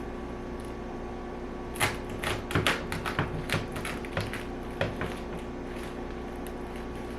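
A run of irregular sharp clicks and crackles, starting about two seconds in and dying away after about three seconds, from the plastic wrap holding a portable clothes dryer's door shut being cut and pulled away.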